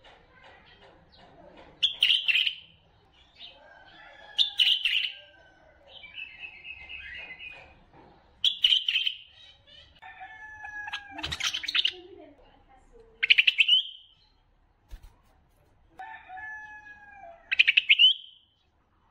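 Bulbul song: loud, short phrases of several quick notes, repeated about every two seconds, some with lower whistled notes under them.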